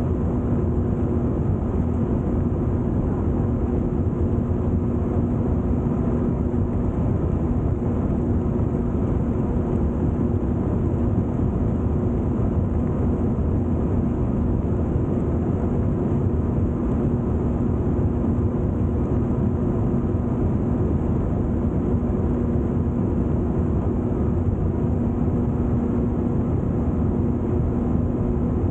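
Jet ski engine running at a steady cruising speed: an even drone that holds one pitch, over a continuous rush of wind and water spray.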